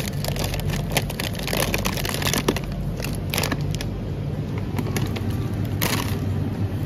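A plastic bag of frozen food crinkling as it is handled, with a louder rustle about six seconds in as it is set down in a plastic shopping basket. A steady low hum runs underneath.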